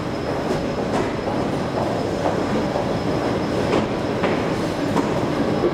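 Metro train running through the station: a steady rumble with a few scattered clicks.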